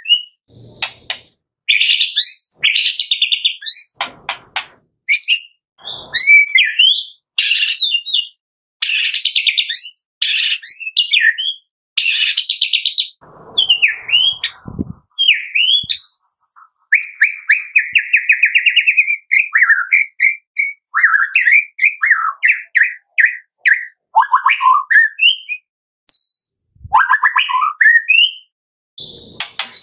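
White-rumped shama singing a varied song of short phrases: sliding whistles, rapid trills and clicky, rattling notes, broken by brief silent pauses. A long, fast trill comes about two-thirds of the way through.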